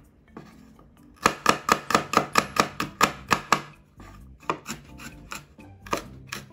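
Chef's knife mincing peeled garlic cloves on a wooden cutting board. About a second in comes a quick run of about a dozen chopping strokes, some five a second, followed by slower, scattered strokes.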